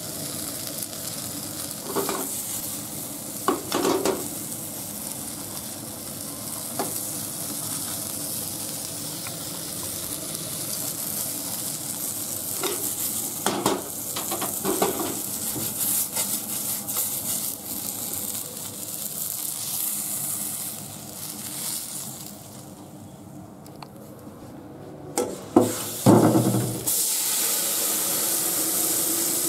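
Small horse mackerel sizzling as they shallow-fry in a frying pan, with chopsticks and a paper towel scraping and a few knocks against the pan. Near the end the pan clatters down into the sink and a tap runs water into it with a steady rush.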